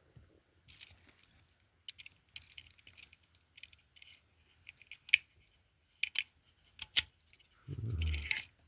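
A small metal lock being turned over in the hands: scattered, irregular sharp metallic clicks and clinks, a few louder than the rest.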